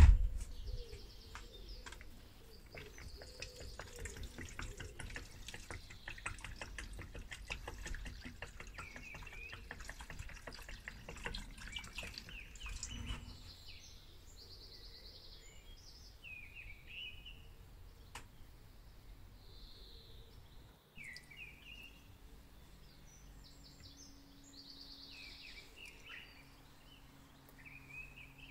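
A sharp knock, then liquid rust remover poured from a jug into a plastic tub of rusty metal parts, splashing for about thirteen seconds. After that it goes quieter, with scattered bird chirps.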